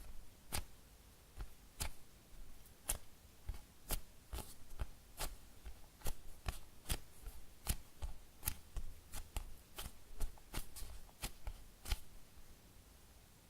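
Fingers tapping, pressing and squeezing a slow-rising foam cheesecake squishy toy: an irregular string of short, sharp little taps and clicks, one to three a second.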